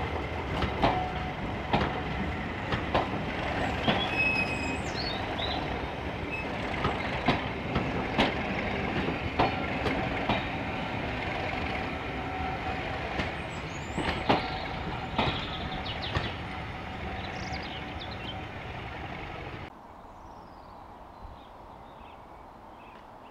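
Heritage passenger coaches rolling slowly past, a steady rumble of wheels on rail with irregular clicks and knocks and the occasional brief wheel squeal. About 20 seconds in it drops suddenly to a quiet background with a few faint high chirps.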